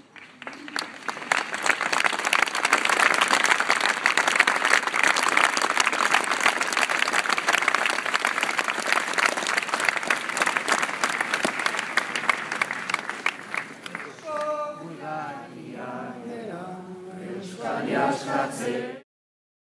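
A crowd applauding and cheering for about thirteen seconds after a rally speech ends. Then voices start chanting together for the last few seconds before the sound cuts off abruptly.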